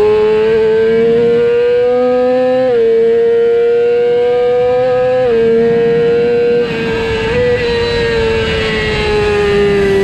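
Yamaha R6 inline-four sport bike engine revving high under hard acceleration, its pitch climbing and dropping sharply at two quick upshifts about two and a half and five seconds in. About two-thirds of the way through the throttle eases and the revs slowly fall.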